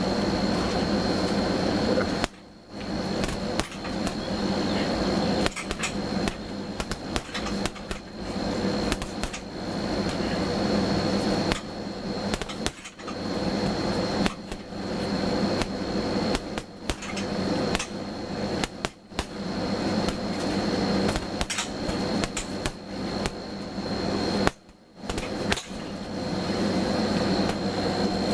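Rapid gloved punches landing on an Everlast heavy bag: a dense run of irregular thuds, broken by two brief pauses, about two seconds in and near the end. A steady hum and a faint high whine run underneath.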